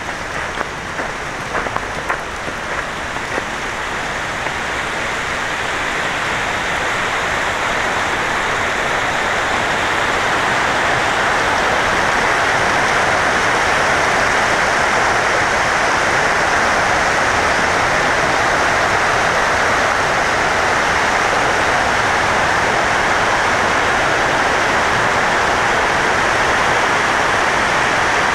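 Rushing water in a steady hiss, growing louder over the first ten seconds or so and then holding level. A few sharp clicks sound in the first couple of seconds.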